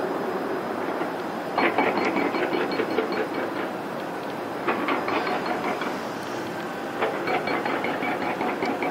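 Rapid clicking and rattling in three spells over a steady rushing noise.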